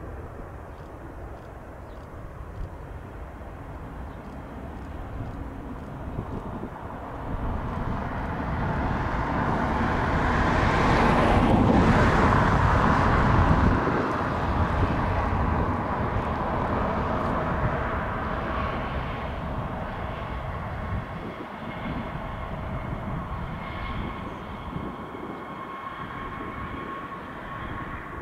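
Boeing 737 MAX 8 landing, its CFM LEAP-1B jet engines heard as a broad rushing noise. It builds as the plane comes in and passes close, is loudest about halfway through, then eases off into a steadier engine whine as it rolls out along the runway.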